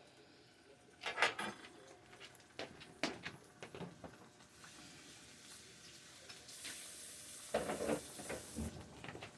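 Eggs and bacon sizzling in a three-section frying pan, with scattered knocks and clatter of utensils against the pan. The sizzling hiss swells about halfway through and drops away shortly before the end.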